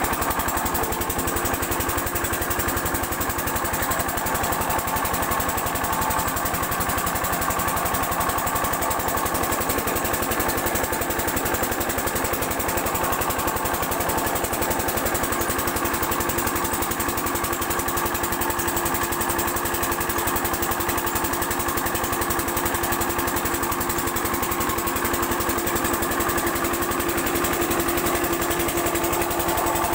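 8 HP diesel water-pump engine running steadily at a constant speed while it pumps water.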